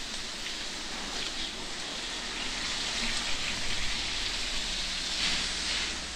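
Rain falling, a steady hiss, which swells louder about five seconds in.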